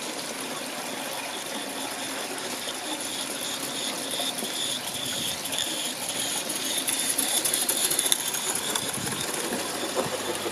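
Mamod Quarry 16 mm-scale live-steam locomotive running on a garden railway, with a steady hiss of steam and a fast mechanical patter, getting louder as it comes closer.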